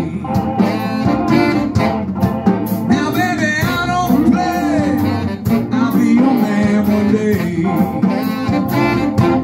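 Live electric blues band playing between sung lines: electric guitars, bass and drum kit, with saxophone and sliding lead fills over a steady beat.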